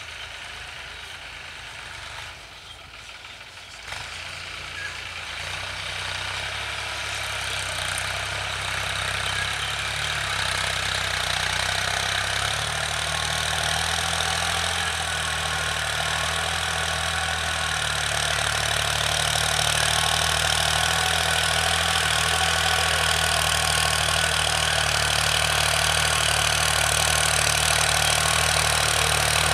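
Mahindra Yuvo 575 DI tractor's four-cylinder diesel engine running steadily while it pulls a rotary tiller through the field, growing louder from about four seconds in as the tractor comes closer.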